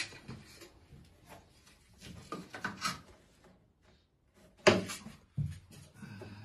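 Tools and tiles being handled on a tiled floor: scattered knocks, rustling and scraping, with one sharp knock about two-thirds of the way through and a smaller one soon after.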